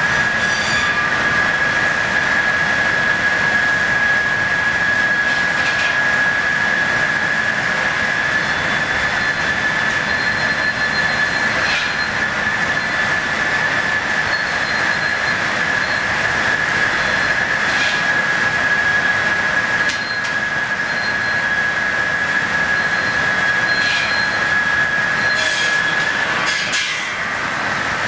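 Steam-powered sawmill machinery, all driven by a single steam engine, running steadily: a constant high-pitched whine over an even rushing noise, with faint light ticks about every six seconds.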